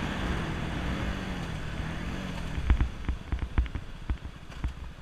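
Voge Brivido 125R motorcycle's single-cylinder engine easing off, its note wavering and fading as the road and wind hiss dies away. From about two and a half seconds in, a run of irregular low thumps.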